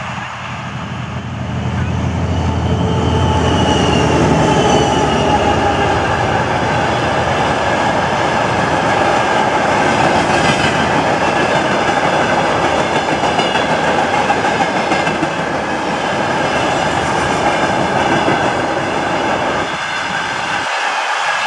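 Freight train passing at close range. A low drone comes in the first few seconds, then a long steady rumble and rattle of freight wagons rolling by, with faint high wheel squeal over it. The low rumble thins out near the end.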